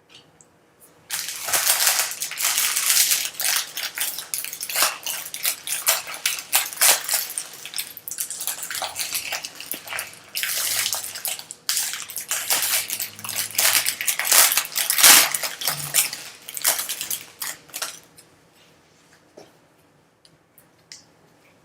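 Crinkling trading-card pack wrapper and cards being handled and slid against each other, an uneven run of rustles and small clicks that stops a few seconds before the end.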